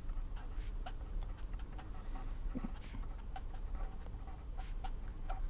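Pen scratching on paper in short, irregular strokes as someone writes, over a steady low hum.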